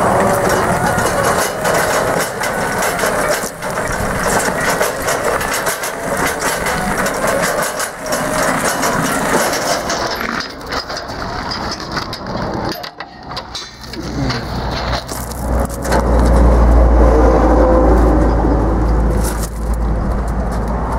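Crunching and clattering of gravel and camera handling as someone moves around a parked scissor lift, full of short knocks. A deep rumble comes in for the last few seconds.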